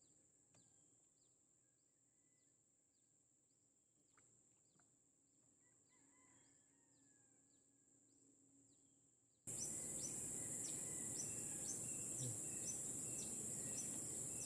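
Insect chorus: a steady high-pitched buzz with short chirps repeating about twice a second, very faint at first and then abruptly much louder about two-thirds of the way through.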